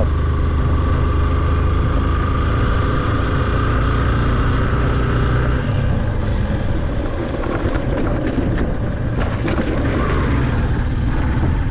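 Motorcycle engine running steadily as the bike is ridden. About halfway through, the steady engine note breaks up into rougher, uneven noise with a few knocks.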